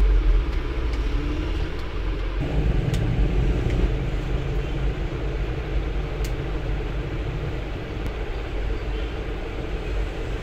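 Steady background rumble and hiss, with a few faint clicks.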